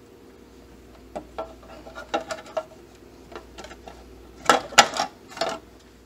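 Hard plastic parts of a Premier Pet water fountain clicking and knocking as its small submersible pump motor is worked loose from the housing, with a louder cluster of clatter near the end.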